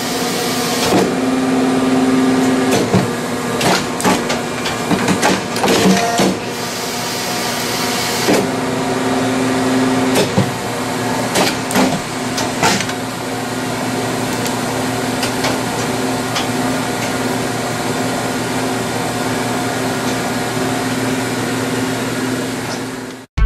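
Injection molding machine running: a steady hum with irregular sharp clanks and clicks from the mold and clamp, most frequent in the first half.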